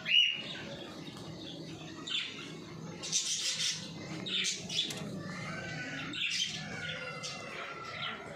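Domestic pigeons moving about on a concrete floor: a sharp bird call right at the start, then several short bursts of wing flapping and rustling, with bird calls between them.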